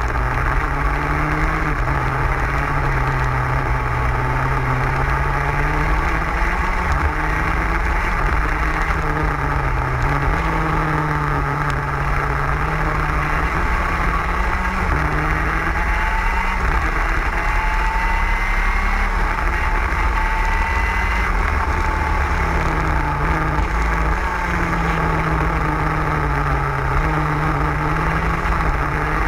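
TM K9C 125 cc two-stroke KZ gearbox kart engine running at racing revs on track, its note climbing and dipping again and again as the kart accelerates down straights and slows for corners, over a constant low rumble.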